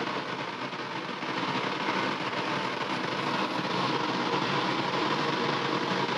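Steady roar of a commercial kitchen gas stove burning under a covered pan, even and unbroken.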